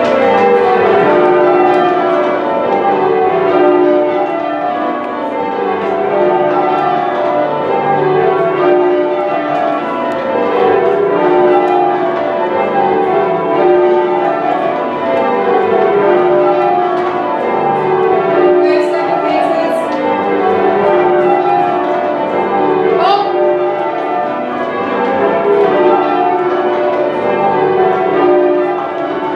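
Manchester Cathedral's ring of ten church bells being rung in changes. Each row is a run of strokes stepping down in pitch from treble to tenor, about one row every two seconds.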